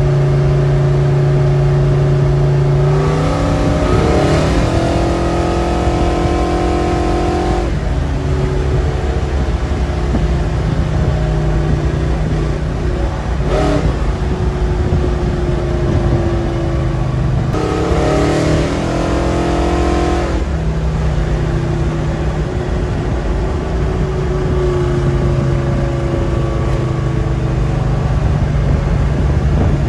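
Engine and road noise of a vehicle being driven, heard from inside the cab; the engine note climbs twice as it accelerates, once a few seconds in and again about two-thirds of the way through, and it cruises steadily in between.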